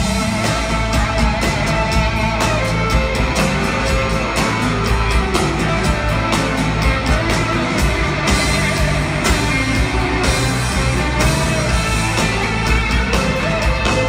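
Live rock band playing a song at full volume: electric guitars over drums that keep a steady, driving beat.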